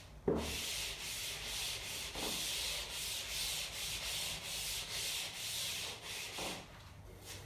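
Chalkboard eraser scrubbing across a chalkboard, wiping off chalk writing in repeated strokes: a high, dry rubbing hiss. It starts with a light knock as the eraser meets the board and stops about six and a half seconds in.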